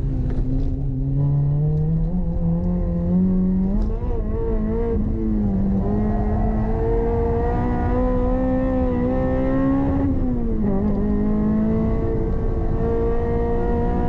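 Toyota MR-S with a swapped-in 2ZZ-GE four-cylinder engine, heard from inside the cabin under hard acceleration on track. The revs climb steadily, dip briefly about four seconds in and again sharply about ten seconds in, and climb once more after each dip.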